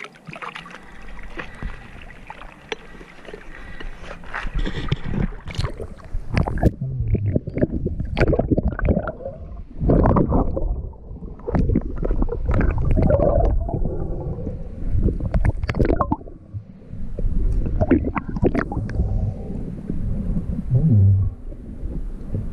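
River water sloshing at the surface for the first few seconds, then about five seconds in the sound turns muffled as the diver goes under: irregular underwater gurgling and bubbling with knocks and rumbles against the camera.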